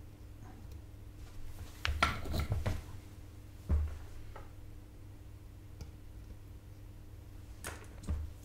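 Small tools handled on a soldering bench: a cluster of clicks and rattles about two seconds in, a single dull knock near four seconds, and two short clicks near the end, over a steady low hum.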